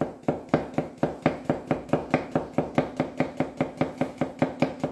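Chef's knife slicing a cucumber thinly on an end-grain wooden chopping board: a steady, even run of quick knocks, about five a second.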